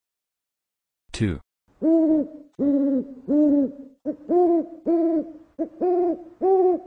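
An owl hooting: a quick series of about eight short, even hoots, each under half a second. About a second in there is a brief falling swoosh before the hooting starts.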